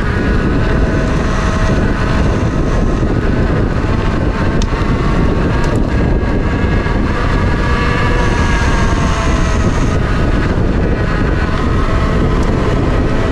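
Mountain bike descending fast on a concrete lane: wind rushes over the handlebar microphone and the tyres roll on the concrete, with a faint whine that drifts up and down with speed.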